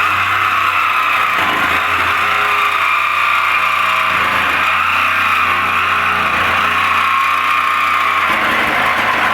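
Ryobi P521 18-volt cordless orbital jigsaw running steadily, its blade sawing through the sheet-steel lid of a steel barrel with a loud, even rasp.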